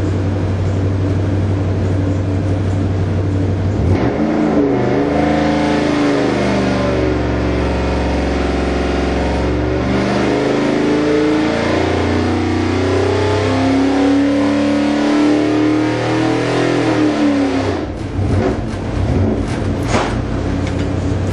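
Ford 351 Cleveland V8 with an XE274H cam and a 750 Holley carburettor running on an engine dyno. It runs steadily at first, then about four seconds in its note changes and climbs through a long, loud pull, easing off near the end.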